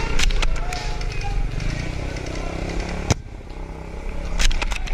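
Airsoft gun shots: a few quick sharp cracks near the start, a single one about three seconds in, and a quick string near the end, over a steady low rumble of wind on the microphone.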